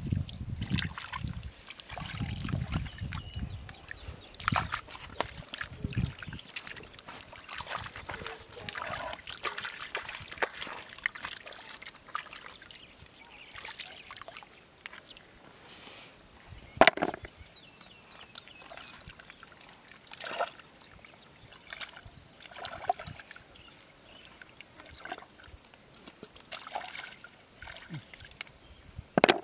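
Hands digging and groping in wet river mud and shallow water, with irregular sloshing, squelching and dripping as freshwater clams are pulled out. A few sharp clacks break in, the loudest about seventeen seconds in and another near the end.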